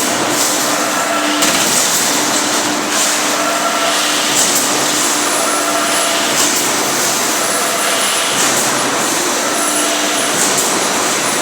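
An automatic mesh welding line running: steady, loud mechanical noise with a hissing surge about every two seconds and a hum that switches on and off.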